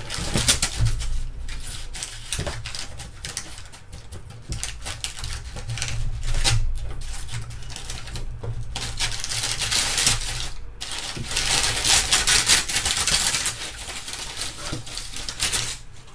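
Crumpled packing paper rustling and crackling as it is pulled and shifted out of a styrofoam-lined shipping box with long metal forceps, louder in a few spells.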